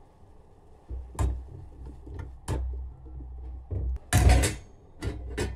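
Kitchen clatter of utensils and containers being handled: a string of sharp knocks and clinks with dull bumps under them, the loudest cluster about four seconds in.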